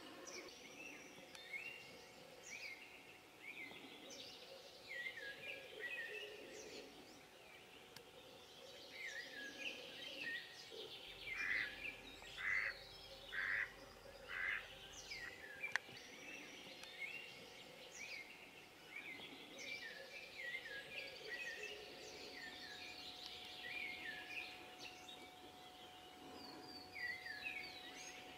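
Hen decoy duck, a domestic mallard, quacking four times in a row about midway, the loudest sound here. Small songbirds chirp throughout in short, repeated descending phrases.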